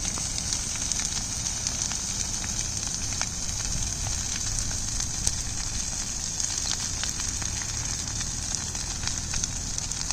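Brush fire burning through dry grass and crop stubble, crackling with many scattered small pops over a steady low rumble and hiss.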